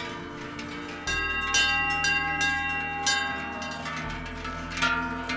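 Large cowbells on grazing cows clanging at irregular moments, each stroke ringing on, over soft background music with sustained low notes.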